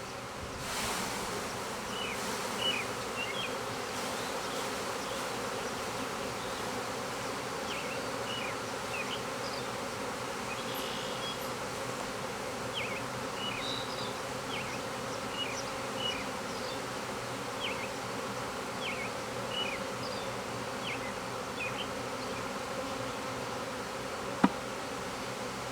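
Honey bee swarm buzzing steadily, a dense hum of many bees, some of them fanning at the hive entrance. Faint short high chirps come and go over the hum, and a single sharp click sounds near the end.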